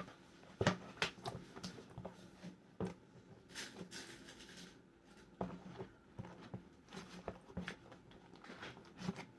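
Spoon stirring and scraping homemade slime in a small container: irregular light clicks and short scrapes.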